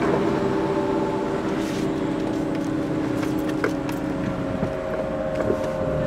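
Four-cylinder car engine with a CVT transmission droning steadily, heard from inside the cabin while driving, over tyre and road noise.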